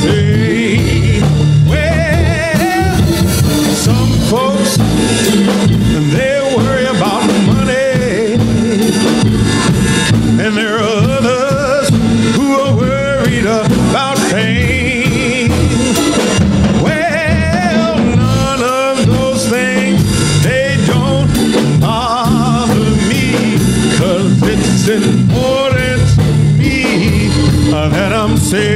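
Live gospel music: voices singing long wavering notes over instrumental accompaniment.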